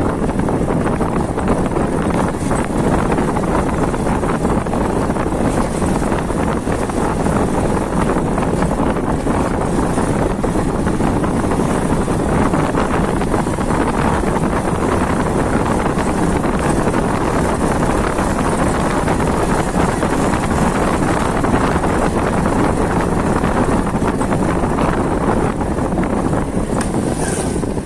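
A motorcycle under way, mostly heard as steady wind rushing and buffeting over the microphone, with the bike's engine and tyre noise blended underneath.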